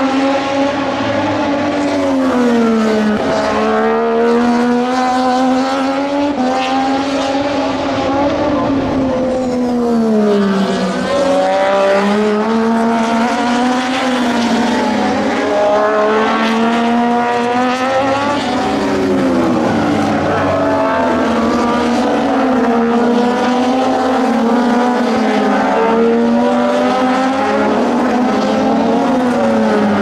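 Moto2 racing motorcycles with Triumph 765 cc three-cylinder engines lapping past at race pace, several heard at once. Their engine notes fall in steps as they downshift into the corner and rise again as they accelerate through the gears on the way out.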